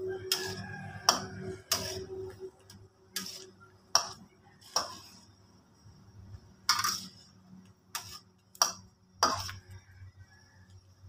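Metal spatula knocking and scraping against a wok while stirring chicken pieces in simmering water: about ten sharp clacks at irregular intervals, most of them in the first half.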